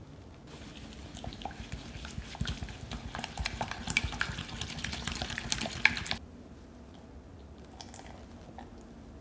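A spatula stirs a wet egg, sugar and oil mixture in a glass bowl, making quick squelching, sloshing strokes with clicks and taps against the glass. The sound builds over the first seconds and cuts off abruptly about six seconds in, leaving only faint ticks.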